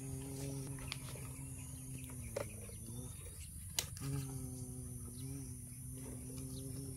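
A person's voice humming a low, steady drone in imitation of a truck engine, wobbling a little in pitch and breaking off briefly about halfway through. Two sharp clicks come in the middle.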